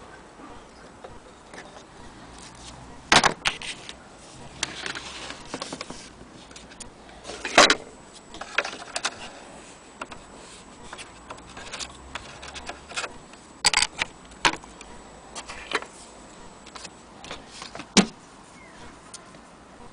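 An old wall clock being handled: irregular clicks and light rattles, with a few sharper knocks now and then.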